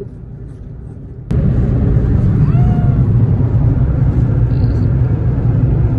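Road and engine noise inside a moving car's cabin, a steady low rumble that jumps abruptly louder about a second in. A brief high-pitched whine-like sound rises and falls near the middle.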